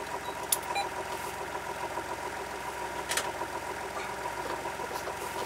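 Sailboat's inboard engine idling steadily, heard from inside the cabin, with a few sharp clicks about half a second in and again about three seconds in.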